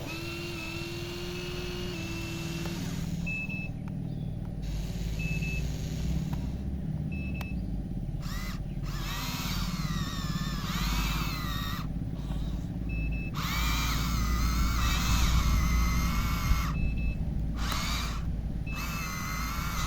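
Tracked excavator engines running with a steady low rumble, a travel alarm beeping briefly about every two seconds, and wavering high squeals over the rumble in the middle and later part.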